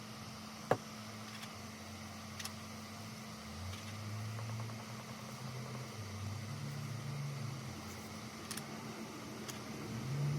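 Electric fan running steadily with a low hum that wavers slightly; a single sharp click about a second in.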